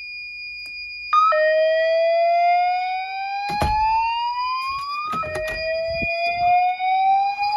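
Fire alarm speaker strobe sounding an evacuation whoop: a rising sweep of about four seconds that starts just over a second in and starts again a little after five seconds in, over a steady high-pitched electronic tone. A couple of sharp knocks sound at about three and a half and five seconds.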